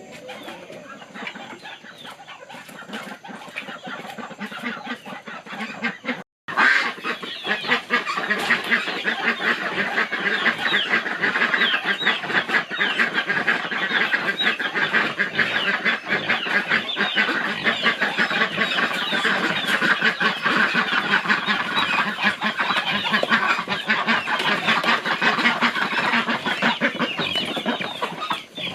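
A flock of chickens clucking and calling. About six seconds in, the sound breaks off for a moment. After that it is much louder: a dense chatter of many birds calling over one another.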